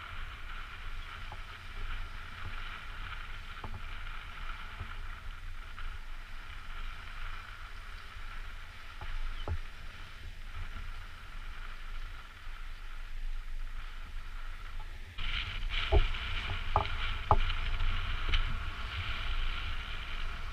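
Sea water lapping and sloshing against shoreline rocks, over a steady low rumble. About three-quarters of the way through the water gets louder, with a few sharp splashes close by.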